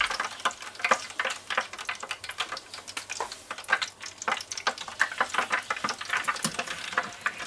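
Wire mesh basket of an electric deep fryer clicking and rattling as two skewered spiral-cut potatoes are set into it and shifted, a run of small irregular taps and scrapes.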